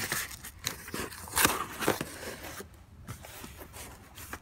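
Corrugated cardboard shipping box being handled and its flaps opened: irregular scrapes, rustles and knocks of the cardboard, loudest about a second and a half in.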